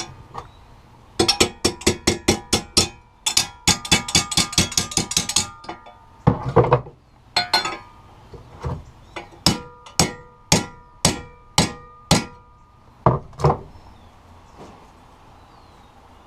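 Hammer blows on steel flat bar, each strike ringing. There is a quick run of blows, several a second, then one scraping clank, then slower single strikes about two a second.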